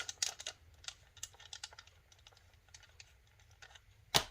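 Light clicks and taps of a metal lightsaber hilt being handled and turned, with one sharp knock about four seconds in.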